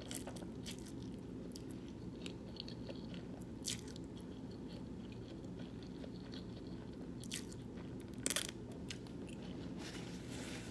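A person chewing food close to the microphone, with scattered wet mouth clicks and smacks over a steady low hum.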